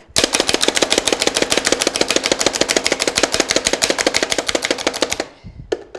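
Hand-pressed plunger food chopper chopping garlic cloves: a fast, even run of plastic clicks and clacks, about eight a second, that stops about five seconds in, followed by a couple of separate knocks.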